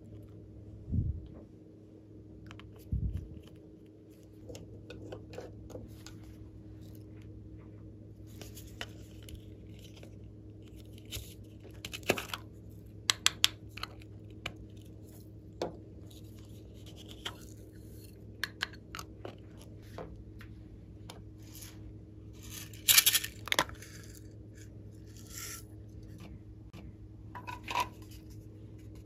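Small plastic toy containers being twisted open and handled with scattered clicks and taps, and tiny beads, sequins and glitter shaken out of them onto slime in short rustling bursts, the loudest about three-quarters of the way through. A faint steady low hum sits underneath.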